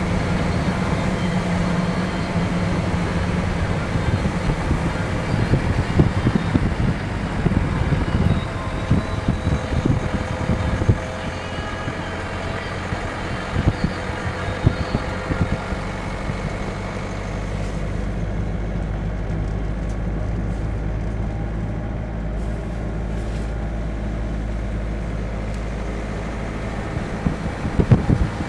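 A van driving along a road, heard from inside the cab: steady engine hum and road rumble with some wind noise on the microphone. The sound gets quieter about eleven seconds in, then settles into a steadier low rumble.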